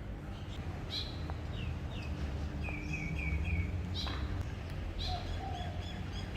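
Small birds chirping: short, sharp calls come about once a second, with a quick run of four short falling notes near the middle, over a steady low background hum.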